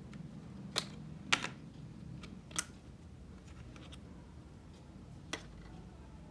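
Scattered sharp clicks and taps, about five in six seconds with the loudest about a second in, from hands working on the parts of an opened MacBook Pro.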